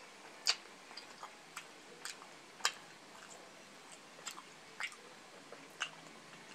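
Close-miked mukbang eating sounds: chewing grilled chicken intestine (isaw), with about nine sharp clicks at irregular intervals from mouth and utensils.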